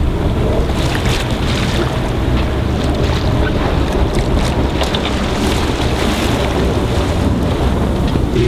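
Wind buffeting the microphone over the rush of choppy water along a small sailboat's hull as it moves, with scattered brief splashes.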